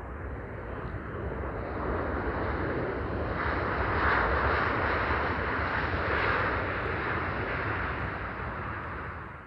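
Airbus A320 jet engines at takeoff thrust during the takeoff roll: a steady rushing roar with a deep rumble that builds as the airliner passes, peaks in the middle, then eases as it rotates and moves away, ending in an abrupt cut.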